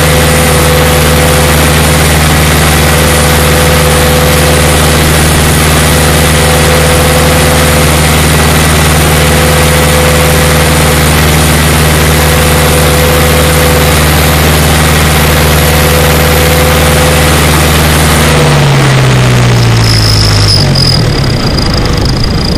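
Case IH 845 tractor's diesel engine running loud and steady, then its revs drop about eighteen seconds in, the pitch falling over a couple of seconds.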